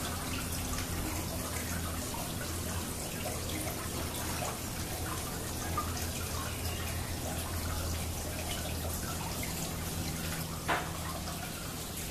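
Water falling and dripping steadily over a small stacked-stone garden cascade, with a low steady hum underneath. A single sharp click sounds near the end.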